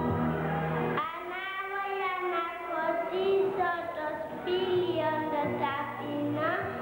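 A held instrumental chord that stops about a second in, then a young girl singing solo into a microphone.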